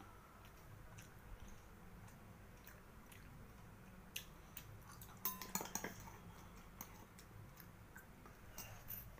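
A metal spoon clinking and scraping against a small steel bowl as a child eats, with faint chewing in between. A quick run of clinks about five to six seconds in is the loudest part.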